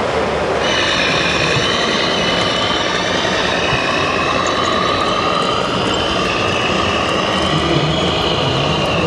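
Large-scale RC model Volvo F16 tractor unit driving under load. Its electric drive gives a high, slightly wavering motor and gear whine over a steady wash of background noise.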